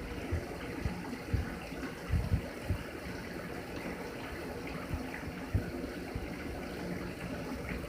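Shower running, a steady spray of falling water, with scattered low thumps.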